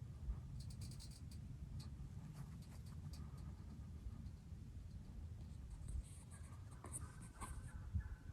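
Faint scratchy rustling with clusters of light clicks over a low steady rumble.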